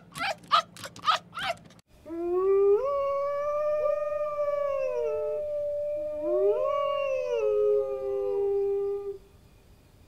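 A red fox's rapid, sharp yapping calls, about five a second, stop abruptly about two seconds in. Two wolves then howl together in long, overlapping held notes. Each howl rises at its start, one voice pitched above the other, and a fresh rising howl begins about six seconds in before both die away near the end.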